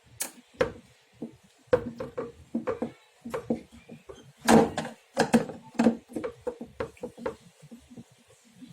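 Irregular knocks and clacks of a CRT television's hard plastic back cover and parts being handled as the set is taken apart, with the loudest clatter a little past the middle.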